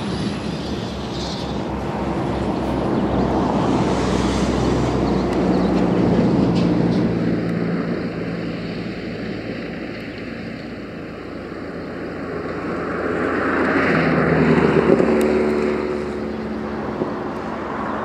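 Road traffic: motor vehicle engines and tyre noise, swelling and fading twice as vehicles pass, loudest about six seconds in and again around fifteen seconds.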